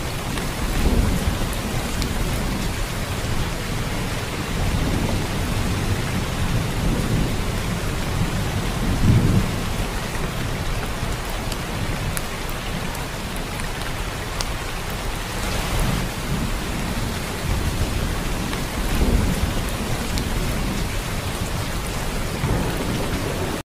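Heavy rain falling steadily, with low rumbles of thunder swelling up several times.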